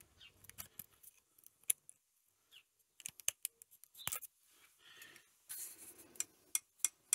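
Light metal clicks and scrapes of pliers and a feeler gauge working a valve-clearance adjuster and its lock nut on a small engine's rocker, while the tappet gap is set. The clicks come sparsely, in small clusters.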